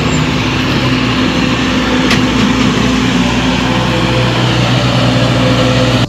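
Trailer-mounted generator sets running with a steady engine drone, which the crew suspects has something not working right.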